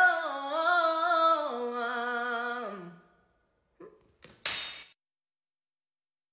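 A woman sings a wordless vocal run that steps down in pitch and ends about three seconds in. About a second and a half later comes a short burst of noise.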